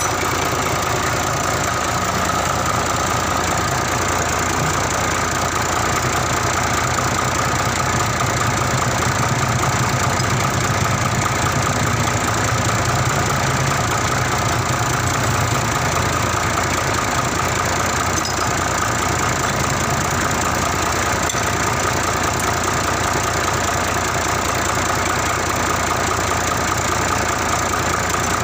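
Mitsubishi Fuso 6D14 inline-six diesel engine idling steadily while its injector nozzles are checked and adjusted one by one. The engine blows white smoke when revved, which the mechanic puts down to a faulty injector nozzle.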